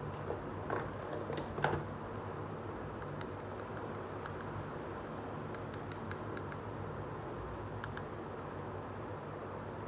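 Light plastic clicks and taps from handling a small plastic toy ice lolly, a quick cluster in the first two seconds, then a few faint ticks, over a steady low hum and hiss.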